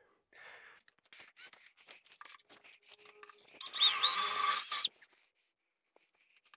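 Power drill run briefly, for about a second with its pitch wavering, boring into the board that backs a wardrobe-door mirror. Before it come a few soft knocks and scuffs of handling.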